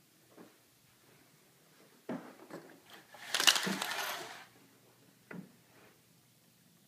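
A few soft thumps, then a clattering rattle of many quick clicks lasting about a second, from something being handled.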